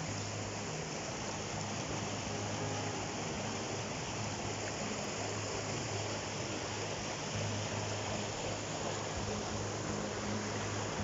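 Fast stream rushing and splashing over boulders, a steady noise.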